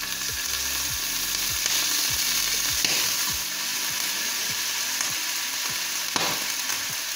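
Boneless chicken pieces dropped into hot oil and sizzling steadily as they fry in a nonstick frying pan, stirred with a spatula. The sizzle swells as the chicken goes in.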